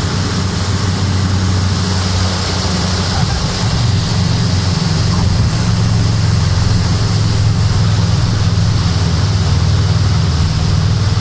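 Cessna 208B Grand Caravan's single Pratt & Whitney PT6A turboprop engine and propeller running steadily during the landing roll, heard inside the cockpit, with a low hum and a hiss above it; it grows a little louder about four seconds in.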